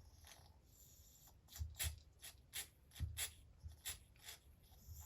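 Faint clicks and light knocks of small parts being handled on a workbench while working on a chainsaw carburettor, irregular, about two or three a second.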